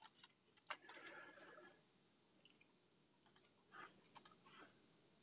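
Faint, scattered clicks of a computer keyboard and mouse, a few at a time: a cluster in the first two seconds and another a little after three seconds in.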